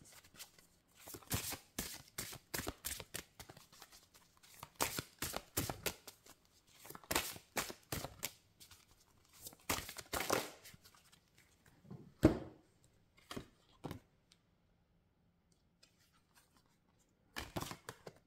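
A deck of large oracle cards being shuffled by hand: a fast run of card flicks and slaps in bursts, with one sharp tap about twelve seconds in. The shuffling pauses for a few seconds near the end, then a few more taps.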